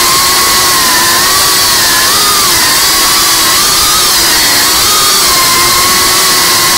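FPV quadcopter's brushless motors and propellers whining, the pitch wavering and dipping with the throttle, over a steady loud hiss of propeller wash.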